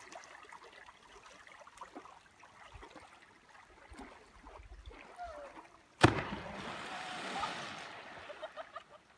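A person's body smacking flat, face-first, onto a lake's surface after a jump from a high bridge: one sharp slap about six seconds in, then a couple of seconds of spray falling back and fading. Before it, only faint outdoor quiet.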